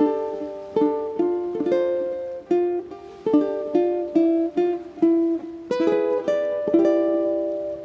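Solo ukulele playing a gentle instrumental melody, picked notes and chords plucked roughly every half second and each left to ring and fade.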